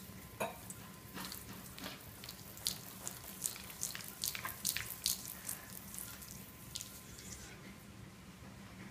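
A Bengal cat's claws scrabbling on a hardwood floor as it spins around: a quick run of sharp scratchy clicks and scrapes that dies away about seven seconds in.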